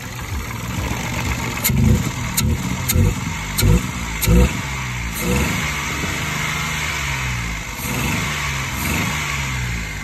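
Three-cylinder 1.0-litre petrol engine idling unevenly while one ignition coil is unplugged and plugged back, a cylinder-by-cylinder test to find which cylinder is misfiring. There are several sharp clicks between about two and four and a half seconds in, and the running steadies in the second half.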